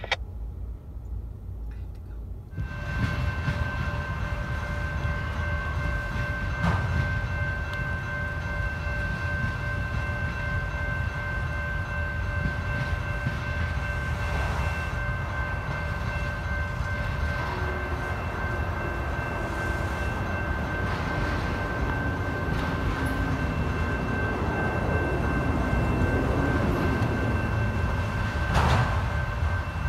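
Freight train's autorack cars rolling past a grade crossing: steady rumble and rattle of the wheels, with steady high ringing from the crossing signal over it. The sound starts abruptly about two seconds in.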